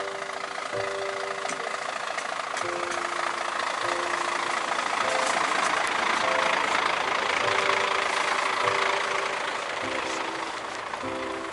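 Steady engine noise from a large diesel coach bus idling, swelling and easing off again midway. Background music with held notes runs over it.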